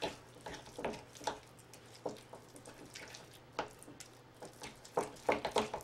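Wooden spoon mashing a thick paste of tomato paste, garlic and softened butter in a glass bowl: irregular wet squishes and scrapes, coming closer together near the end.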